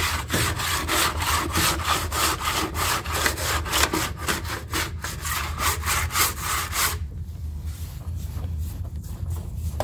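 Hand sanding hardened fiberglass body filler on a sheet-metal rocker panel: quick, even back-and-forth rasping strokes that stop abruptly about seven seconds in.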